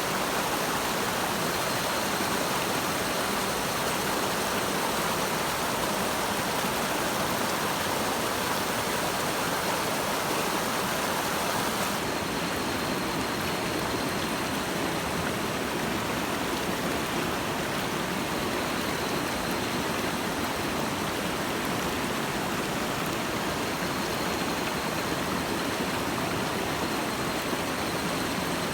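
Mountain stream water rushing steadily, an even hiss of running water that softens slightly in its upper range about twelve seconds in.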